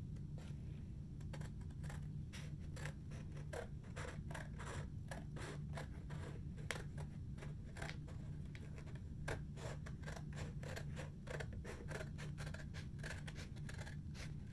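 Scissors snipping through thick paper in a long run of quick, irregular cuts, over a low steady hum.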